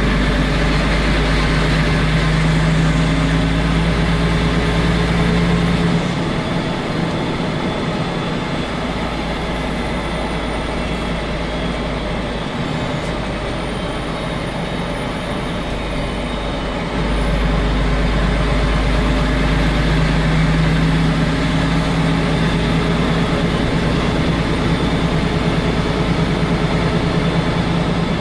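Heavy truck's diesel engine running steadily on the road, heard from inside the cab. It eases back about six seconds in and pulls harder again around seventeen seconds in.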